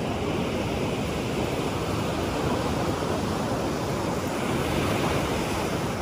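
Surf washing onto a beach: a steady rushing noise with slight swells.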